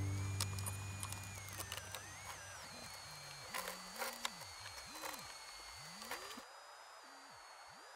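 Portable radio being tuned across the dial: faint static and crackles, with thin whistling tones that sweep up and down as the tuning moves. The hiss drops away about six and a half seconds in, and a low held note from the preceding cello music fades out in the first two seconds.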